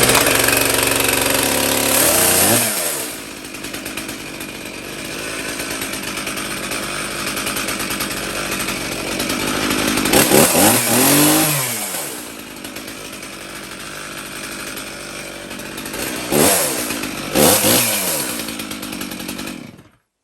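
Stihl MS391 two-stroke chainsaw running at a high fast idle just after starting on half choke, then dropping to idle about two seconds in as the throttle is squeezed. It idles, is revved up and back down around ten seconds in and twice more near the end, then cuts off.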